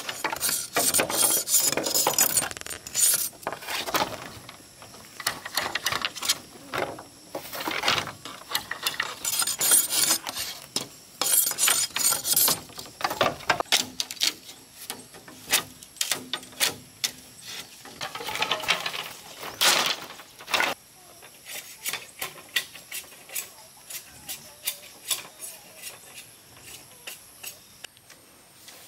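Rasping, scraping strokes in bursts of a second or two, mixed with many sharp clicks and knocks; the scraping is busiest in the first two-thirds and thins out to scattered clicks near the end.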